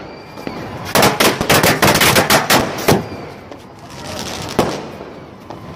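A string of firecrackers going off: a rapid, uneven run of sharp cracks lasting about two seconds, starting about a second in, then one more crack about a second and a half later.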